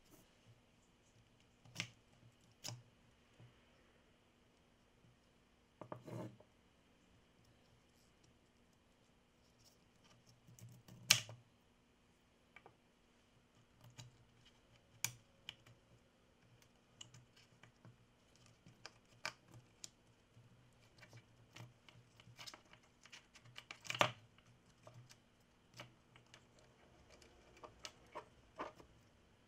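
Hands handling the opened plastic housing and internal parts of a Milwaukee M18 impact driver: scattered light clicks, taps and scrapes of plastic against plastic and against the wooden bench. Two louder knocks come about eleven and twenty-four seconds in.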